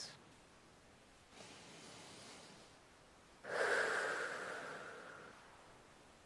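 A woman taking a slow deep breath: a soft inhale about a second and a half in, then a louder exhale that fades away over about two seconds.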